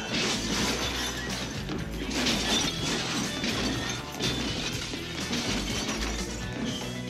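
Music with crashing, shattering noises mixed in.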